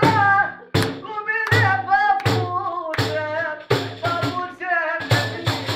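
Tallava song: a man's voice singing wavering, ornamented lines over a def frame drum struck in a steady beat.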